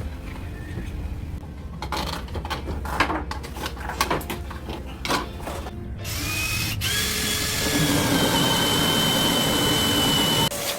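Scattered knocks and clatter of tools being handled, then a power drill spins up with a rising whine that settles to a steady pitch. It runs for about four seconds and stops suddenly near the end.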